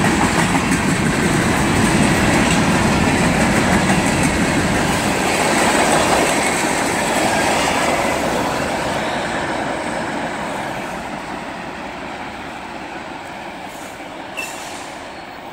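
Slow freight train rolling past, its steel wheels clattering over the rail joints. The noise fades steadily over the last several seconds as the train moves away.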